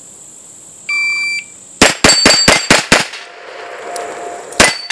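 A shot timer beeps once, then a gold-plated 2011 STI pistol fires six rapid shots in just over a second, steel plates clanging as they are hit. One more shot follows about a second and a half later, taking down the last plate.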